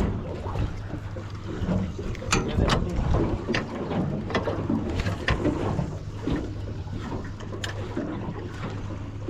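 Small fishing boat on the water: a steady low hum from the idling Yamaha 75 outboard, with frequent sharp clicks and knocks and water slapping around the hull.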